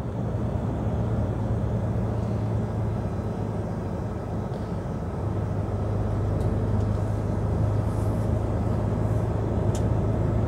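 Lorry's diesel engine and road noise heard from inside the cab while driving: a steady low drone.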